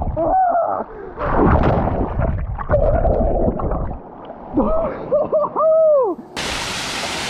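Water splashing and sloshing as a person wades into an ice-cold waterfall pool, with short rising-and-falling cries at the cold. Near the end a waterfall's steady rush takes over.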